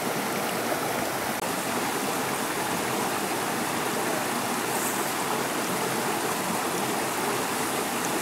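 Small rocky forest stream running steadily over little cascades, an even rush of water.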